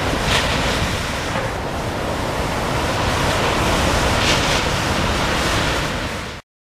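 Ocean surf, waves breaking and washing in a steady hiss that swells louder twice; it cuts off suddenly near the end.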